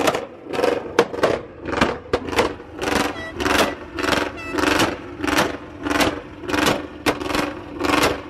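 A car engine being revved over and over in quick throttle blips, about two a second.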